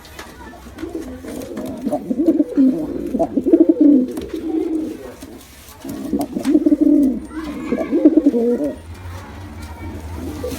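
Pigeons cooing in two long, rolling bouts of low calls, with a short pause between them.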